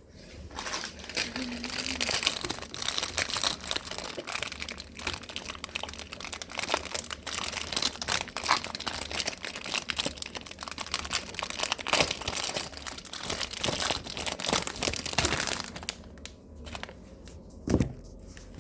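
Microwave popcorn packaging being opened and handled, crinkling and rustling for about fifteen seconds, then a single knock near the end.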